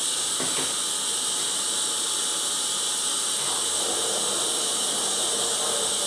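Steady hiss of water running through the wort-chilling hoses while the wort is cooled.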